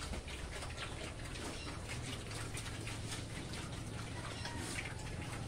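Several pigs feeding at a trough, with irregular quick smacking and chewing sounds.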